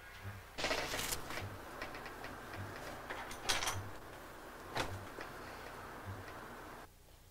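A clock ticking about once a second, with short rustles of paper being handled on a desk.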